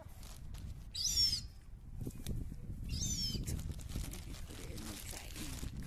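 Juvenile gull giving two thin, high, squealing calls that fall in pitch, each about half a second long and about two seconds apart.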